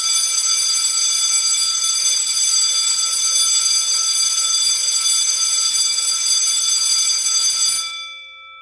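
Electric school bell of an automatic bell system ringing continuously for about eight seconds, then cutting off, with a few of its tones ringing on faintly for a moment as it dies away. It is the assembly-time bell.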